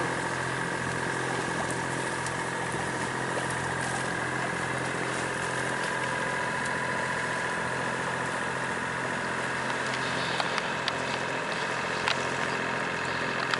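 Yacht's engine running steadily while motoring under way, a constant hum with a few faint clicks near the end.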